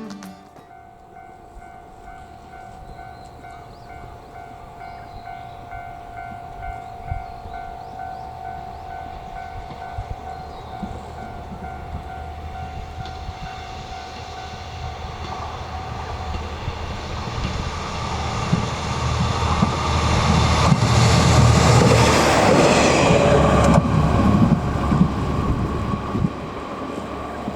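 JR Shikoku 1000 series diesel railcar approaching and passing close by, its engine and running noise building to a peak about two-thirds of the way in, with wheels clicking over the rail joints. Under the first half, a level-crossing warning bell rings with a steady, evenly pulsing tone.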